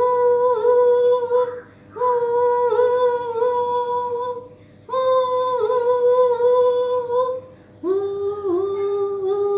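A woman's voice giving four long, steady hoots, the last one lower, like a train whistle; each is held about two seconds with short breaks between.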